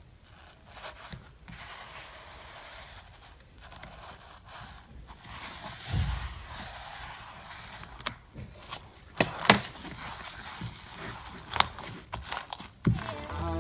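Glittery slime being stirred with a small plastic tool and then worked by hand in a plastic bowl: soft scraping and sticky crackling, with sharper clicks and pops growing louder in the second half and a dull thump about six seconds in.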